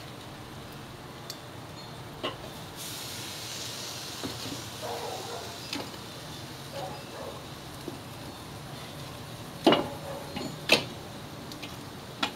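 Metal spatula and tongs clinking against a grill grate as meatloaf patties are turned over, a few sharp clinks with the loudest two about ten seconds in. A stretch of hissing sizzle about three seconds in as meat goes down on the hot grate.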